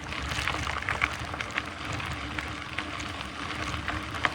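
Mountain bike tyres rolling over a dirt and gravel trail: a steady hiss with many small clicks and ticks scattered through it.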